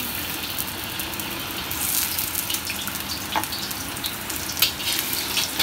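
Small chopped aromatics frying in hot oil in a black wok: a steady sizzle with scattered pops and crackles, busiest about two seconds in and again near the end.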